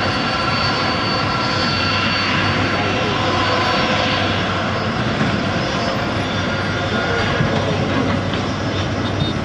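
Airbus A330-200's twin Pratt & Whitney PW4000-series turbofans running at a steady low taxi thrust: a jet rush with a fixed high whine as the airliner rolls slowly onto the runway.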